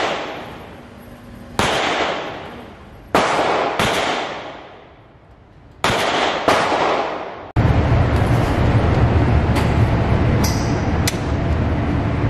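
Four single pistol shots, one to three seconds apart, each with a long echo off the concrete walls of an indoor range. About halfway through, a steady loud low rumbling noise with a few faint clicks takes over.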